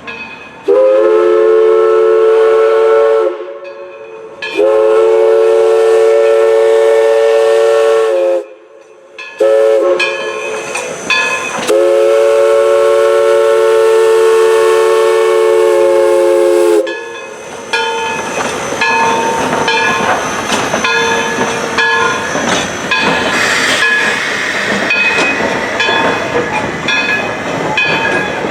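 The chime steam whistle of East Broad Top 2-8-2 steam locomotive No. 16 blows two long blasts, a short one and a final long one, the grade-crossing signal. After that the narrow-gauge train runs by with a steady rhythmic clatter of wheels on rail.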